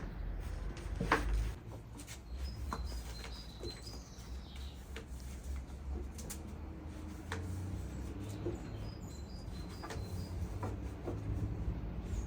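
Birds chirping faintly, with scattered light clicks and knocks and a low rumble underneath.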